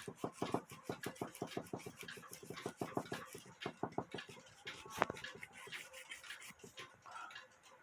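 A brush scrubbing the metal of a cuckoo clock movement in quick back-and-forth strokes, several a second, thinning out after about four seconds. One sharper click about five seconds in.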